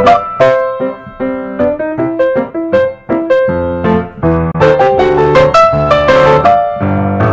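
Background instrumental music: a quick melody of struck notes over low bass notes.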